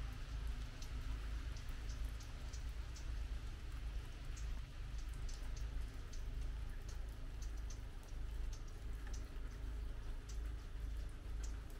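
Light rain: scattered drops ticking irregularly, a few each second, over a soft hiss, with a steady low rumble underneath.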